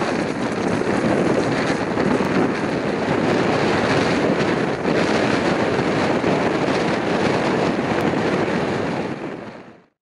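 Strong wind buffeting the microphone, a steady rushing noise that fades out about a second before the end.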